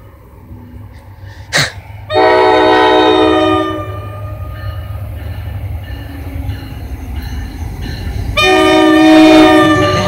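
Nathan K5LA five-chime horn on an NJ Transit ALP-45DP locomotive sounding two blasts: one about two seconds in, which dies away slowly, and another near the end. Both sound over the low rumble of the approaching train.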